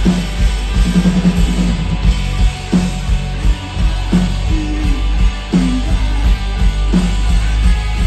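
A rock band playing live through a stage PA: electric guitars, bass guitar and drum kit, loud and dense, with regular drum hits.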